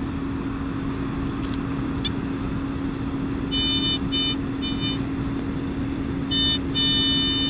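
Handheld metal-detecting pinpointer probed around a dig hole, giving short buzzing alert tones as it picks up metal: a few short buzzes about halfway through and a longer one near the end, over a steady low hum.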